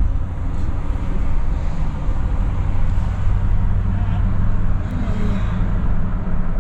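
Steady engine and road noise of a moving car, heard from inside the cabin as a constant low rumble.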